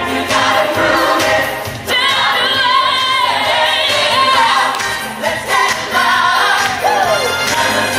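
Pop dance song played by a live band with singers at microphones. A voice holds long wavering notes and slides down near the end.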